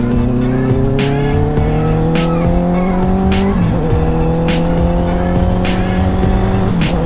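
Honda CBR650F inline-four engine accelerating under load: its note climbs steadily, drops about halfway through as it shifts up a gear, climbs again, and drops once more near the end at the next upshift.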